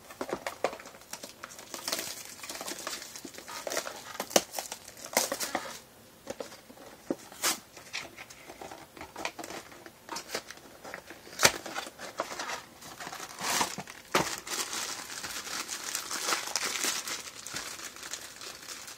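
Cardboard blind box handled and opened, and the foil bag inside crinkled and torn open, in irregular crackly bursts with a few sharp clicks.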